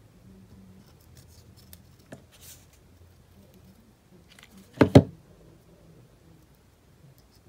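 Faint handling of a plastic headband and ribbon, then, about five seconds in, two sharp knocks close together as a hot glue gun is set down on a cutting mat.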